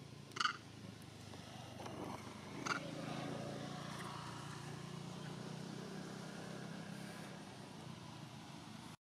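A motor engine hums low and steady, swelling about two seconds in and then slowly fading, as of a vehicle passing. Two short high chirps stand out near the start and about three seconds in.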